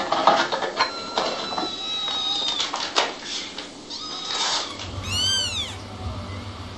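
Young domestic kittens mewing: a string of short, high-pitched mews in the first few seconds, then one long mew that rises and falls about five seconds in.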